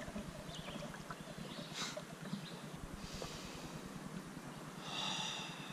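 Faint, quiet outdoor ambience on a calm river around a drifting kayak, with a short hissing sound about five seconds in.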